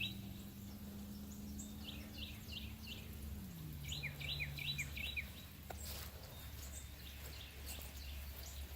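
A songbird singing two short phrases of four or five quick, falling chirps, over a faint low steady hum that drops in pitch about three and a half seconds in.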